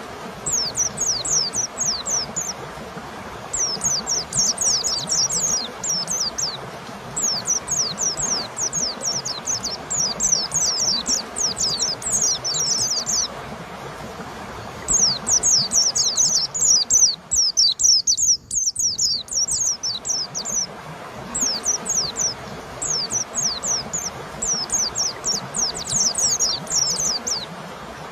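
White-eye (pleci) singing: fast runs of high, thin, downward-sweeping notes in phrases of a few seconds, separated by short pauses, over a steady hiss.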